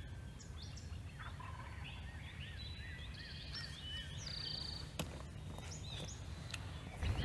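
Wild turkey gobbling, mixed with songbirds calling in short chirps and a run of repeated arched notes. A single sharp click about five seconds in.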